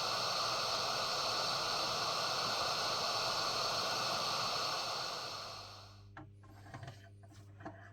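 Hot air gun of a YCD-8582D rework station blowing with a steady hiss, which dies away about five seconds in. A few faint clicks and knocks follow.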